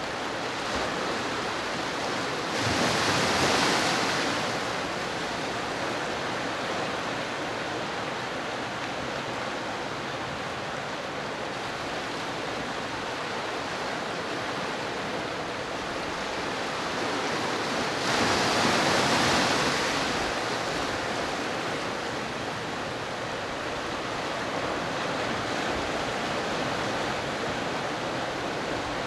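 Pacific surf washing through a narrow rocky cove: a steady rush of water, with two louder waves surging in, about three seconds in and again about eighteen seconds in.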